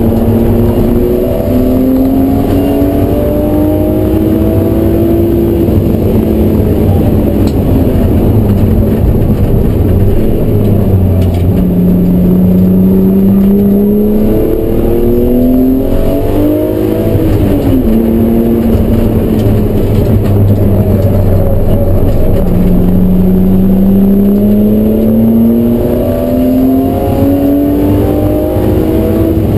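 BMW E36 M3's straight-six engine under hard acceleration, heard from inside the caged cabin. Its pitch climbs steadily through each gear and falls back at the shifts and lifts, several times over, with a brief rise and fall near the middle.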